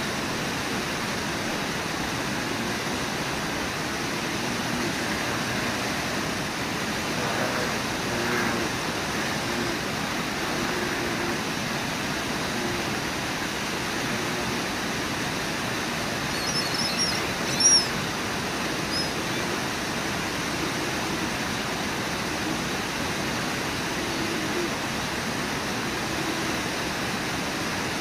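River waterfall and whitewater rapids rushing steadily. A few brief high chirps cut through about two-thirds of the way in.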